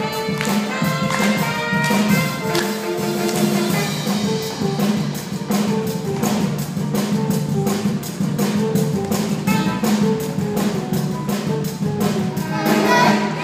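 A live pit band plays an upbeat instrumental dance section with a steady driving drum beat, held horn and saxophone notes, and guitar.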